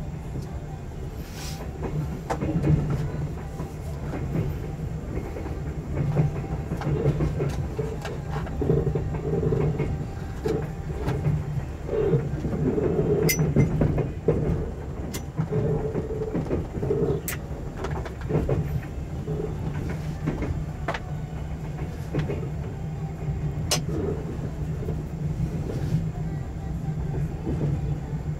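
Running noise of a 24-series sleeper coach heard from inside the cabin: a steady low rumble of wheels on rail with scattered sharp clicks as the wheels pass over rail joints and points.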